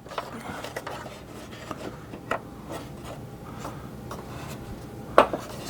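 Hard plastic toy parts being handled and fitted onto a vintage toy vehicle's body: steady light rubbing and scraping with small clicks, a sharper click about two seconds in and a couple more near the end.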